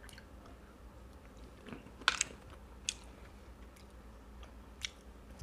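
Dabai seed kernels (kenyat) being bitten and chewed, with a few sharp crunches: the loudest about two seconds in, others near three and five seconds.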